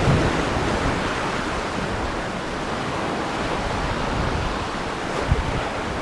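Sea surf washing against the rocks, a steady roar of water, with wind buffeting the microphone in low gusts at the start and near the end.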